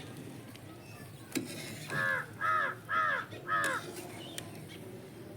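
A crow cawing four times in quick succession, each call a short arched caw, preceded by a single knock.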